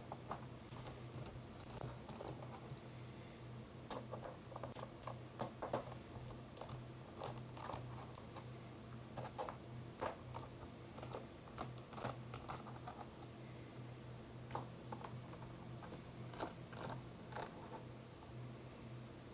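Scattered light clicks and plastic rattles from a cheap mechanical keyboard being handled and taken apart, over a steady low hum.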